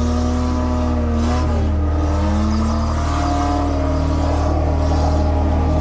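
Suzuki Vitara's engine revving hard under load as it tows a boat trailer through soft sand, its pitch shifting up and down a couple of times.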